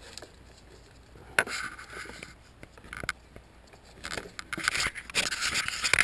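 Handling noise: hands rubbing and scraping among engine-bay wiring and against the camera, with a sharp scrape about a second and a half in and a run of rubbing and scraping in the last two seconds.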